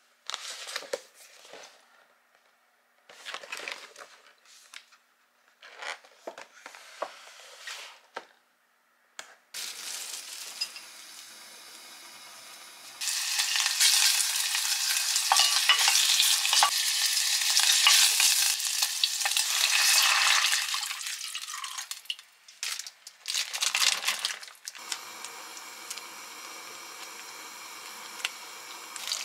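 Short rustles and knocks of a boxed meal kit being handled and unpacked, then sliced pork frying in a pot and sizzling loudly while a wooden spoon stirs it for about eight seconds in the middle. Near the end a quieter, steady simmer as the stew cooks.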